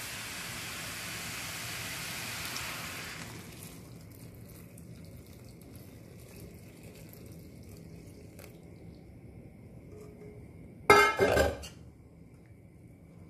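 Grated carrots sizzling in ghee in a hot iron kadhai, the hiss dropping away after about three seconds as boiled milk is poured in over them. About eleven seconds in, a loud ringing clatter of metal against the pan, the loudest sound.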